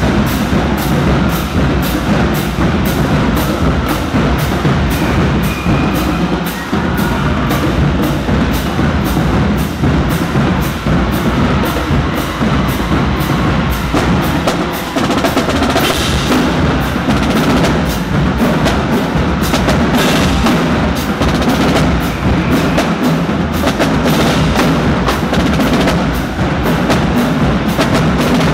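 Marching band drumline playing a march-in cadence: a steady, rapid beat of drums with sharp, clicking strokes.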